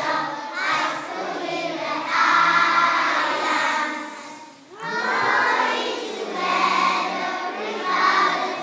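Children's choir singing a school anthem in long held phrases, with a brief pause between phrases about four and a half seconds in.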